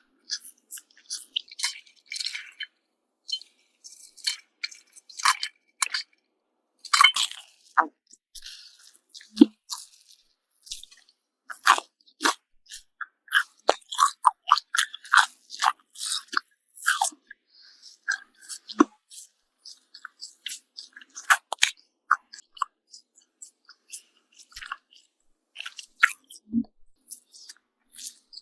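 Close-miked eating: sharp crunching bites and chewing of toast, with irregular crackles and mouth sounds, moving to softer chewing of pancake with bacon near the end.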